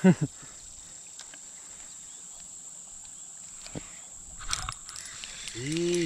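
Quiet riverbank ambience with a steady high-pitched insect drone. A few faint clicks come about two-thirds through, and a brief man's voice sounds at the very start and again near the end.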